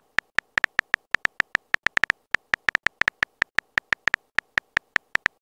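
Simulated phone-keyboard key clicks from a texting app as a message is typed: a rapid, slightly uneven run of short, identical ticks, about six a second.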